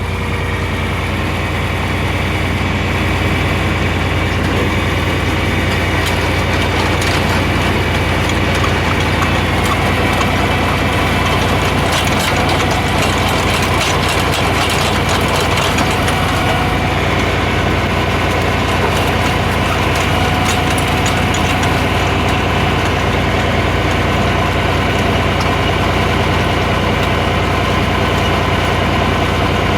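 Tractor engine running steadily under load while driving a post hole digger auger into hard, rocky ground, with a stretch of rattling and scraping clatter in the middle.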